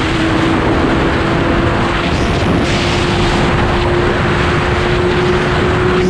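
Sport motorcycle engine running steadily at speed, its pitch climbing slowly as it pulls, under heavy wind noise on the microphone.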